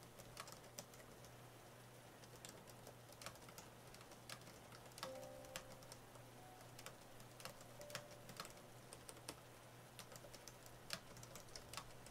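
Quiet typing on an AlphaSmart portable word processor: irregular key clicks at an uneven pace, with a few faint piano notes underneath.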